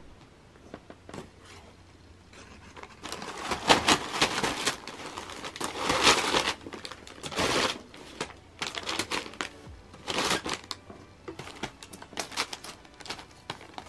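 Crumpled brown kraft paper crinkling and rustling under a cat as it rolls and paws at a toy, in irregular bursts that are loudest through the middle.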